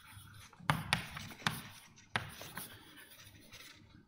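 Writing by hand: scratchy strokes with several sharp taps in the first half, as of a pen or chalk on a writing surface.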